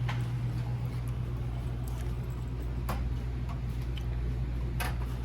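A low steady hum with a few sharp clicks.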